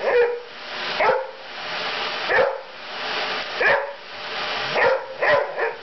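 A dog barking repeatedly, about seven sharp barks roughly a second apart with the last few coming closer together, over the steady noise of a running vacuum cleaner.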